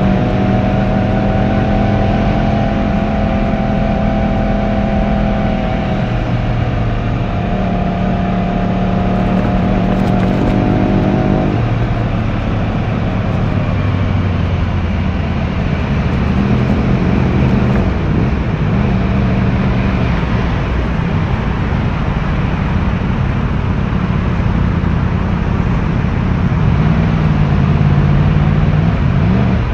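Yamaha YZF-R1's 1000cc inline-four running through its stock exhaust while being ridden, with a steady engine note for about the first twelve seconds. It then drops to a lower note mixed with more wind and road noise, with some small rises and falls in revs near the end.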